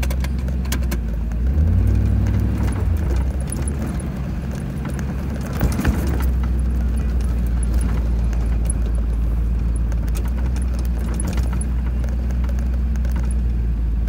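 1997 Land Rover Defender 90's V8 engine running at low revs as it creeps over rough dirt, heard from inside the cabin, with light rattling and clicking throughout. The engine note rises briefly about two seconds in, and a few knocks from a bump come about six seconds in.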